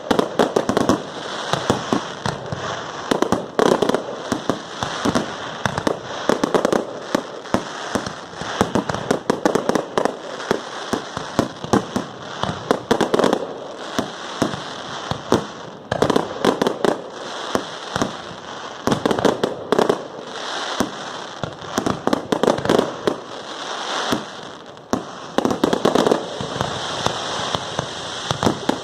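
Fireworks display: a dense, unbroken run of sharp bangs and crackling, with several loud reports every second.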